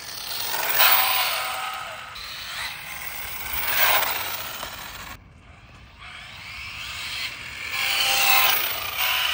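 Dual-motor Arrma Infraction RC car with brushless motors driving past on pavement: tyre and drivetrain noise with a thin motor whine, swelling three times as it passes, about a second in, around four seconds, and near the end.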